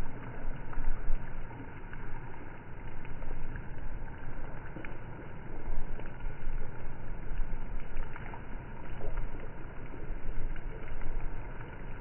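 Steady rain falling on a wet road and puddles, with gusty wind buffeting the microphone so the sound swells and falls every second or two. Faint scattered ticks of single drops are heard through it.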